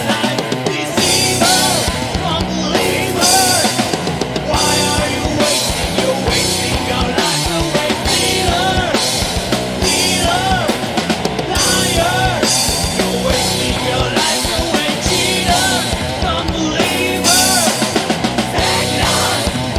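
Studio recording of a heavy rock song: distorted electric guitars, bass guitar and a drum kit playing, with a short melodic phrase repeating every couple of seconds over steady cymbal hits.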